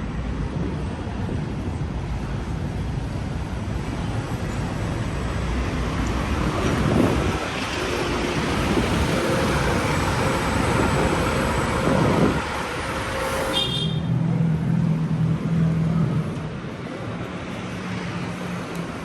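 Road traffic: vehicles driving past, the loudest passing in the middle, followed for a few seconds by the low hum of an engine.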